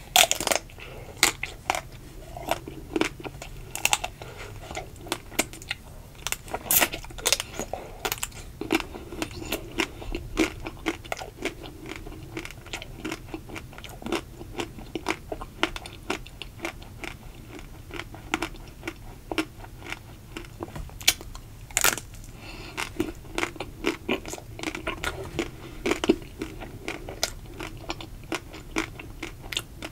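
Bites into a ruby-chocolate-coated ice cream bar, with the thin chocolate shell cracking sharply right at the start. Then comes steady chewing and mouth sounds full of small crackles of shell, with a few more sharp cracks along the way.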